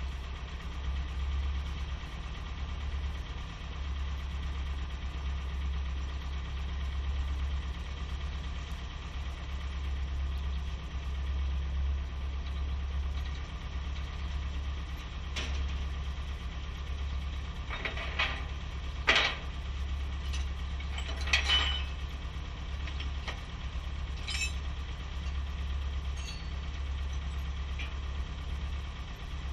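Heavy equipment engine idling steadily with a deep hum. Several sharp clanks or knocks come in the second half of the stretch, the loudest about two-thirds of the way through.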